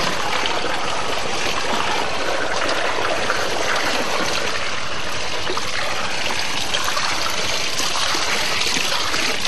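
Water falling and splashing steadily over a homemade metal waterfall.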